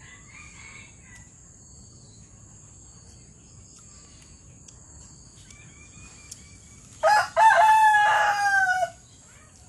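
A rooster crowing once, about seven seconds in: a short opening note, then a long drawn-out call that drops in pitch at the end. A steady high insect drone runs underneath.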